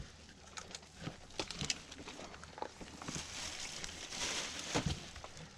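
Fillet knife cutting deer meat into small chunks on a plastic cutting board: faint, scattered taps and clicks of the blade against the board, with a soft hiss around three to four and a half seconds in.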